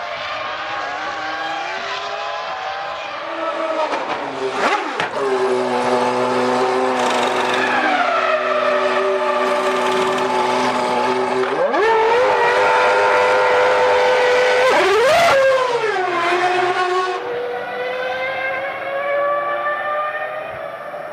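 2001 Formula One cars' 3-litre V10 engines at high revs, their pitch holding steady, climbing and dropping away as the cars accelerate, lift and pass by.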